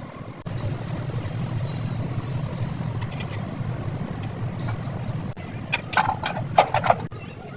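Truck engine starting about half a second in and running steadily with a low rumble, with a few short, louder sounds near the end.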